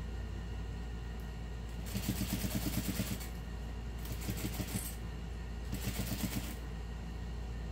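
Juki sewing machine stitching a seam in three short runs of rapid needle strokes, about a second each with brief pauses between, over a steady low hum.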